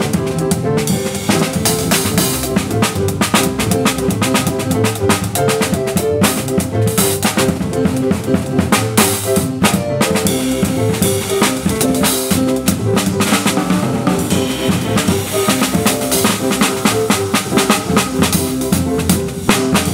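Small band playing: a drum kit struck with sticks on snare and cymbals, over a Nord stage piano and double bass holding and repeating notes.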